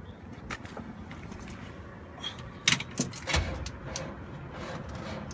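Keys jangling and clicking at the ignition of a 1964 Chevrolet Impala as it fails to start, with a cluster of sharper clicks and a brief low thump about three seconds in.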